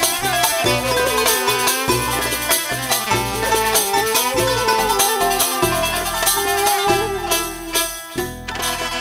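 Tunisian traditional music: an instrumental interlude of a small ensemble, a gliding melody line over plucked strings, bass notes and rattling percussion. The music thins out in the last few seconds, leaving jingling percussion strokes more exposed.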